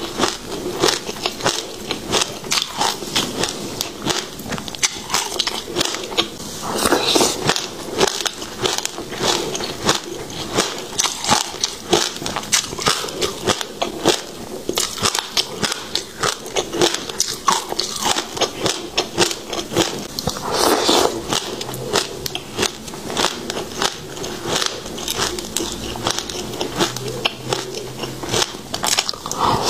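Close-miked chewing of a mouthful of passion fruit seeds: dense, rapid crunching and crackling that goes on without a break.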